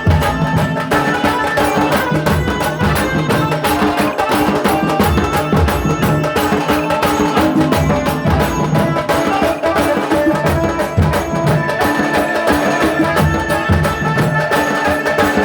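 Tasa (tasha) drums beaten in fast, dense strokes under a melody of held notes: loud, continuous traditional band music.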